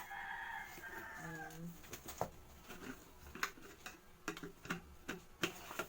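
A drawn-out animal call in the first second and a half, followed by scattered clicks and knocks of plastic paint-sprayer parts being handled.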